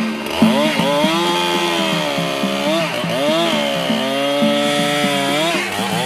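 Chainsaw engine cutting into a tree trunk, its pitch rising and falling repeatedly.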